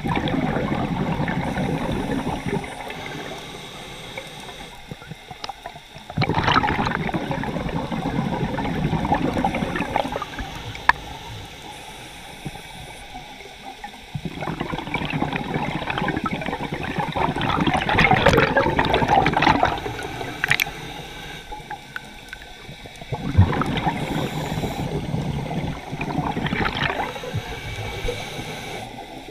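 Scuba divers' regulator breathing heard underwater: four long bursts of bubbling exhaust several seconds apart, with quieter stretches between.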